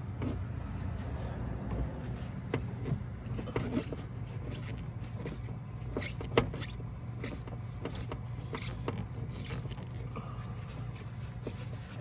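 Scattered light clicks and scrapes of a Phillips screwdriver working the armrest screws out of a plastic door trim panel, with one sharper click about six seconds in, over a steady low hum.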